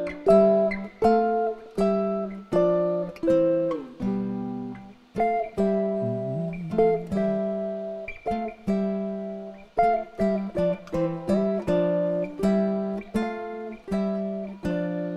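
Two acoustic guitars, a nylon-string classical and a steel-string, play a song's instrumental introduction. Picked notes and chords each start sharply and ring away, with no singing.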